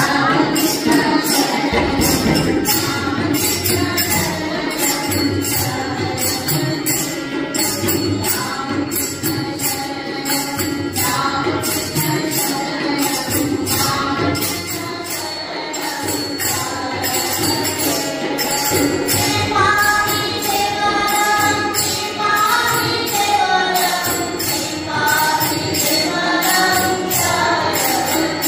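Group devotional prayer singing with a steady jingling percussion beat. The sung melody stands out more clearly in the second half.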